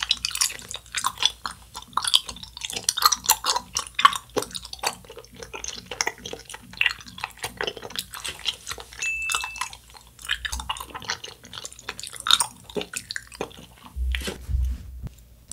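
Chewing a gummy burger candy, with many irregular wet mouth clicks and smacks.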